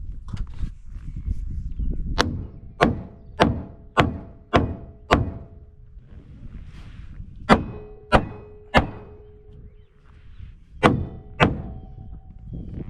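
Hand hammer driving nails into framing lumber: six strikes in a steady rhythm about twice a second, a pause, three more, then two near the end. Each blow is sharp with a brief metallic ring.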